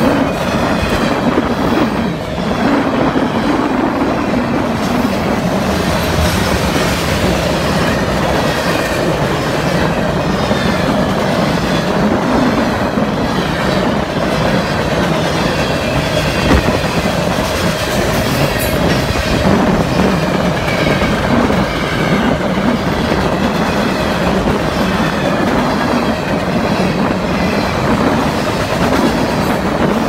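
Freight train cars rolling steadily past at close range: a continuous rumble with the clatter of steel wheels on the rails.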